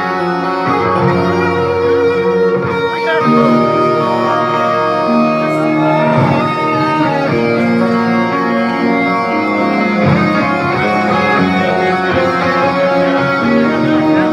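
Live hard-rock band playing loudly, with electric guitars to the fore.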